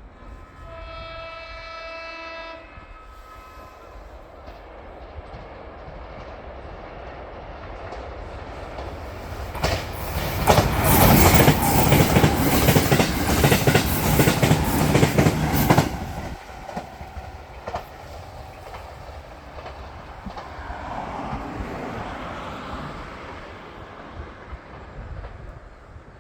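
JR Kyushu 787-series electric limited express sounding its horn once for about two seconds on the approach, then passing at speed over a level crossing. The wheel and rail noise rises to a loud rush with rapid clickety-clack for about six seconds before falling away as the train recedes.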